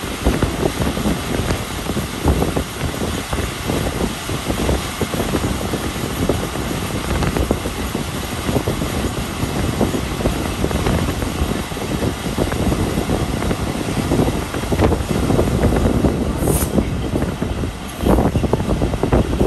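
Moving passenger train heard from an open coach door: a steady rumble and clatter of wheels on the rails, with wind buffeting the microphone. A few brief high squeaks come near the end.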